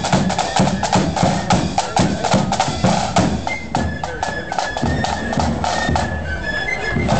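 Marching band playing: rapid snare and bass drum beats dominate, with a thin high melody line coming through faintly in the second half.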